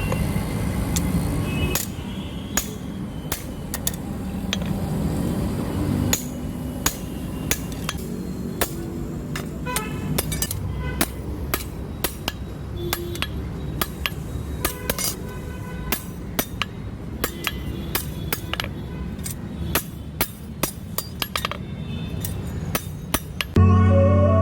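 Hand hammer striking a steel billhook blank on an anvil in irregular blows, roughly one or two a second, each with a short metallic ring, over a steady low rumble. Music comes in loudly near the end.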